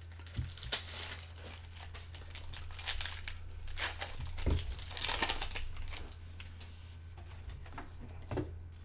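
Crinkling and rustling of trading-card pack wrappers and cards being handled, in irregular bursts, over a steady low hum.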